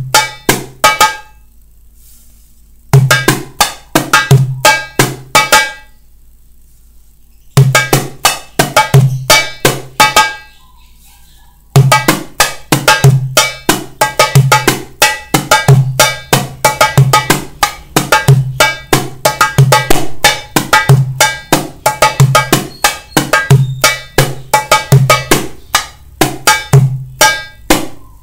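Darbuka played by hand: deep dum strokes in the centre of the head mixed with sharp tek and ka strokes at the rim and slaps, following the pattern D k S . k . S k D . k . S . t k. Three short phrases come with pauses of a second or two between them, then the rhythm runs on without a break from a little before halfway through.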